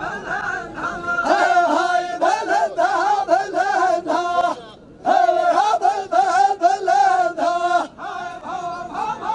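Kurdish wedding music: a wavering, ornamented Middle Eastern melody in two long phrases, breaking off briefly about halfway through.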